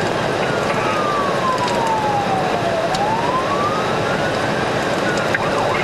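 Police car siren wailing in slow falls and rises over steady road and engine noise, switching to a fast yelp near the end.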